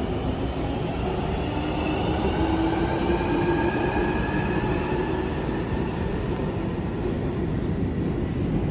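London Underground Jubilee line train (1996 Stock) running through the station, its traction motors giving a whine that slowly rises in pitch over a heavy, steady rumble of wheels and running gear.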